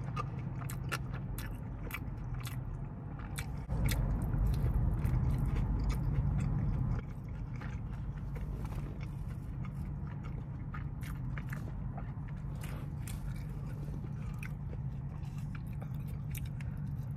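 Close-up chewing of a sauced, breaded chicken tender: many small wet mouth clicks and squelches. A low steady hum runs underneath and is louder for about three seconds near the middle.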